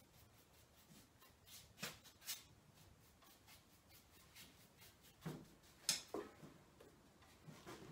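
Faint paintbrush strokes on a stretched canvas: a few soft, short scratchy swishes, with one sharper tap about six seconds in.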